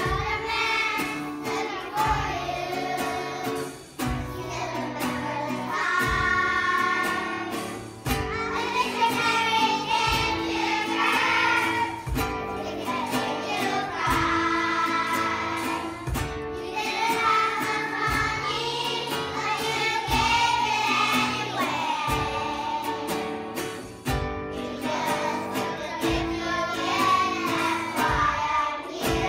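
Children's choir singing a song, accompanied by a strummed acoustic guitar keeping a steady beat.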